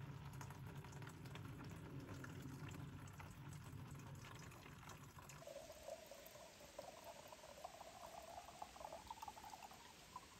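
Water poured from a small metal pot into a large plastic jug, filling it. In the second half a tone from the filling jug comes in and climbs slowly in pitch as the water level rises.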